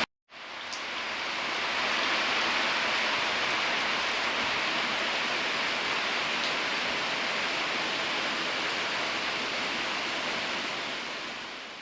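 Steady heavy rain, a dense even hiss, fading in at the start and out near the end.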